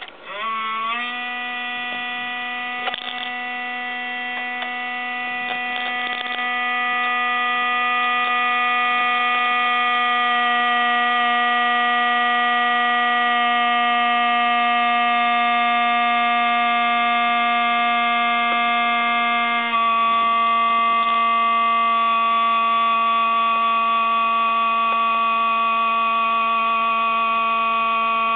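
Toshiba REGZA RD-R100 hard-disk recorder giving off a loud, steady whining hum, the abnormal noise it has lately begun making on its own while switched off: a fault. The pitch sweeps up within the first second as it starts, then holds steady, with a slight change in tone about twenty seconds in.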